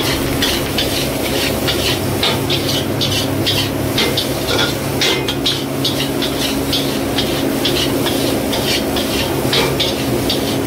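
Steel ladle scraping and clinking against an iron wok as fried rice is stir-fried, in quick uneven strokes about two or three a second. A steady low hum runs beneath.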